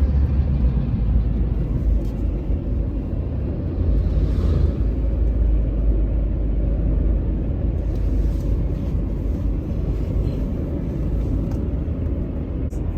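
Steady low rumble of road and engine noise from a moving car.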